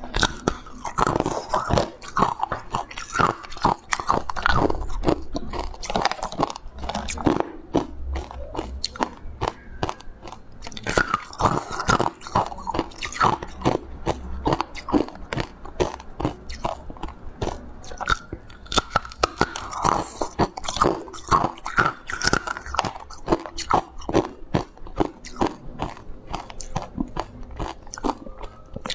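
Chunks of blue-coloured ice being bitten and chewed: a dense, irregular run of sharp crunches and crackles as pieces are bitten off and ground between the teeth.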